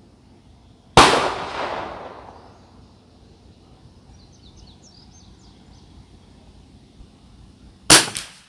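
A single .22 LR shot from an Anschutz 1761 match rifle about a second in, its report echoing away over about a second. Near the end comes a quick cluster of sharp clicks.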